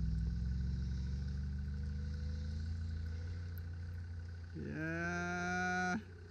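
Range Rover Classic's engine fading steadily as the truck pulls away up a snowy track. About four and a half seconds in, a person's long, drawn-out vocal call rises and then holds for over a second before cutting off sharply.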